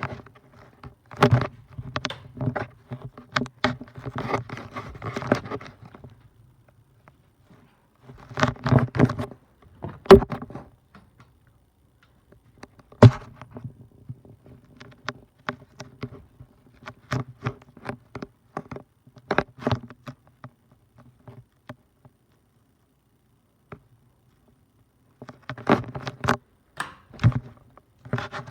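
Hunter Stratford 52-inch ceiling fan running: a low motor hum with irregular clicks and rattles, coming and going in patches between short stretches of near silence.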